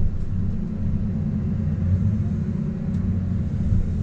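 Heavy diesel engine of an earthmoving machine running steadily, a low even rumble.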